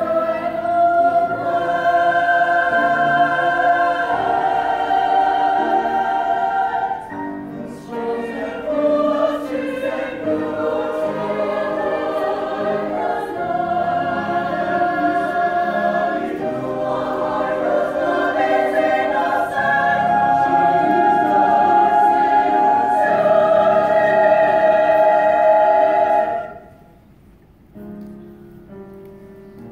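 Mixed choir of young voices singing long held chords with piano accompaniment, with a brief break in the sound about seven seconds in. Near the end the voices cut off, leaving soft piano.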